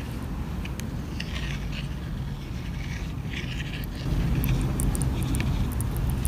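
Hermit crabs' legs and shells scratching and clicking against their enclosure as they crawl: scattered small clicks and scrapes, more of them in the second half. Under them is a steady low hum that gets louder about four seconds in.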